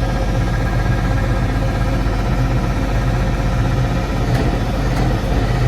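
Tractor engine idling steadily, with a couple of faint clicks near the end.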